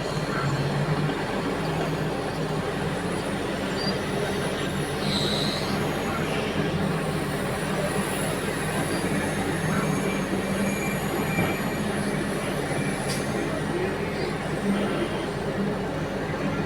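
Diesel engines of a large mining excavator and haul truck running steadily under load, with faint thin high whines above the engine noise.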